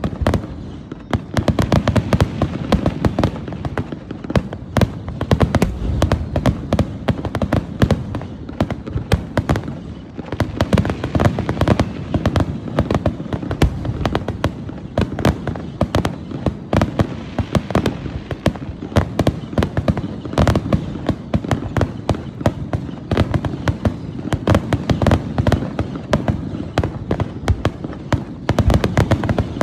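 Aerial fireworks in a rapid finale barrage: dense, overlapping bangs and crackles, many a second, with a heavy booming rumble throughout.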